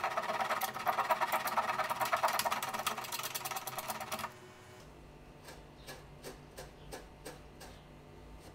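A small hand saw with a thin blade, held flat, cuts a wooden sliver glued into a crack flush with the reed pan in quick, short strokes. The sawing stops abruptly about four seconds in, and faint light clicks follow.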